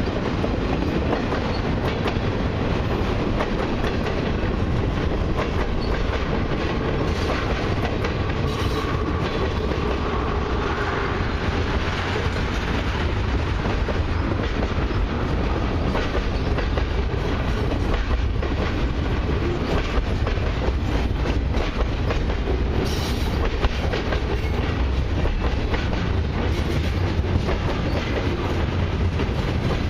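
Freight cars of a long CN mixed freight train (autoracks, boxcars, covered hoppers) rolling past close by: a steady rumble with the wheels clicking over rail joints.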